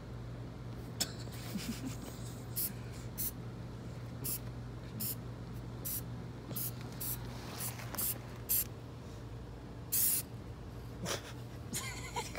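Aerosol spray-paint can spraying in many short hisses, roughly one every half second to second, with a slightly longer spray about ten seconds in.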